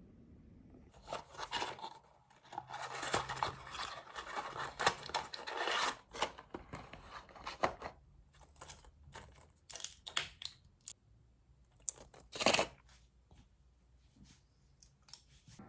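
Medicine packaging being torn open and handled: several seconds of crinkling, tearing rustles, then scattered clicks and light handling noises, with one short loud rustle near the end.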